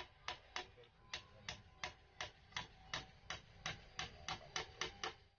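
Bamboo being struck over and over with a hand tool, about three sharp strikes a second, quickening toward the end.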